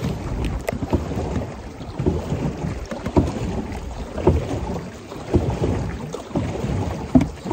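Wind buffeting the microphone and water washing along a large canoe under way on open water, with a soft swell in the noise about once a second.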